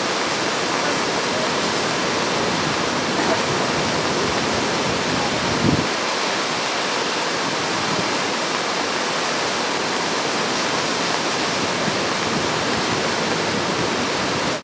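Steady rushing of a white-water mountain stream tumbling through a rocky gorge, an even noise of falling water with one brief low bump about six seconds in.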